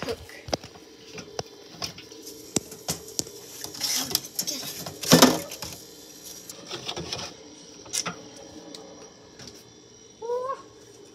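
Scattered bumps, knocks and rustling from a handheld camera being carried and moved about, with one louder bump about five seconds in and a short rising squeak near the end.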